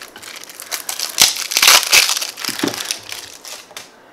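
Thin clear plastic film on a small plastic slime container crinkling and crackling as it is handled and peeled. The crackling is densest and loudest a little over a second in and dies away near the end.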